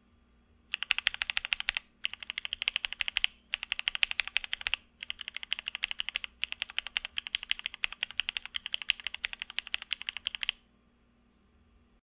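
Mechanical keyboard with Alpaca switches under Cherry-profile keycaps, the G and H keys pressed in quick runs of clacky keystrokes broken by brief pauses, ending in a longer run. The H key's north-facing switch rubs against its Cherry-profile keycap, so its strokes sound less crisp than the G's south-facing switch.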